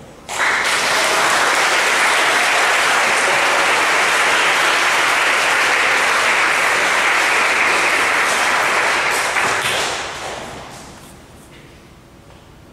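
Audience applauding, starting suddenly about half a second in, holding steady, then dying away after about ten seconds.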